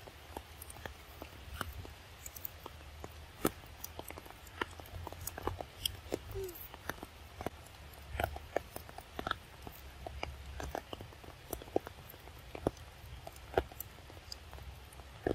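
Macaques chewing and biting crisp cucumber pieces: irregular wet crunches and clicks, several a second, over a low steady rumble, with a brief squeak about six seconds in.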